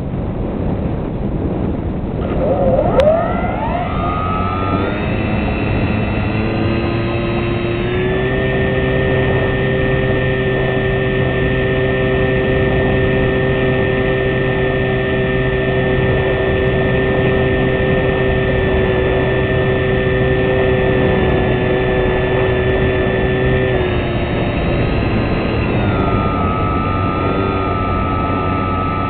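Motor and propeller of a small fixed-wing RC UAV, heard through its onboard camera with wind rushing over the microphone. The motor's pitch rises about three seconds in, holds a steady whine, then drops to a lower pitch a few seconds before the end.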